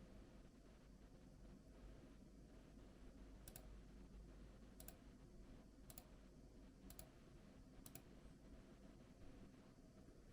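Faint single key presses on a Rampage KB-R97 X-Tracer mechanical keyboard with clicky blue switches: five sharp clicks about a second apart, starting a few seconds in, over a faint steady low hum.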